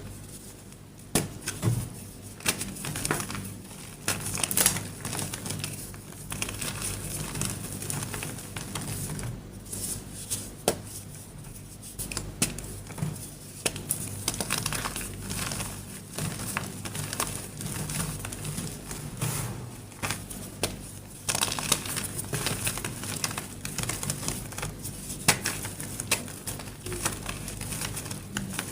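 Dyed gym chalk being crushed and crumbled, a continuous run of dry, irregular crunches and crackles.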